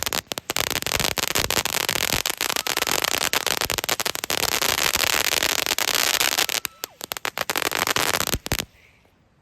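A lit firework crackling: a dense, rapid stream of small sharp pops that falters briefly about seven seconds in and cuts off suddenly near the end.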